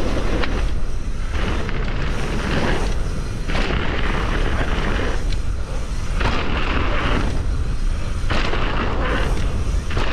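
Wind buffeting a chest-mounted action camera's microphone, with tyres rolling on a dirt trail, as a mountain bike descends at speed: a loud, dense rumble that swells and eases every second or two.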